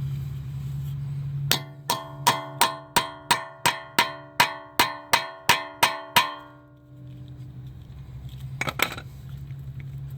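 A hammer striking a center punch against the staked collar of a CV axle nut: about fourteen ringing metal-on-metal hits at a steady three or so a second, knocking the punched-in lip out of the axle's slots so the nut will not grab. A shorter metal clatter follows near the end.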